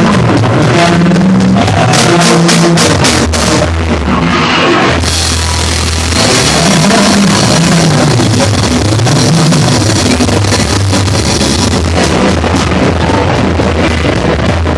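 Rock band playing loudly: electric guitar, bass and drum kit, with a moving bass line under the guitars. About a third of the way in the cymbals open up into a dense crash wash that carries on until near the end.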